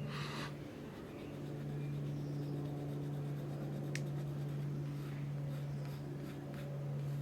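Pencil scratching on paper in short strokes, the longest in the first half second, with one sharp tick about four seconds in, over a steady low electrical hum.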